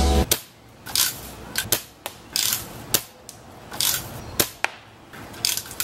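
A rapid, irregular series of sharp clicks and short hissing snaps, about a dozen in all, with quiet gaps between them.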